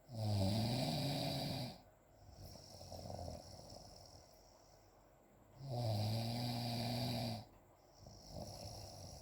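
Snoring: two loud, low, buzzing snores about a second and a half long, some five and a half seconds apart, each followed by a quieter breath out.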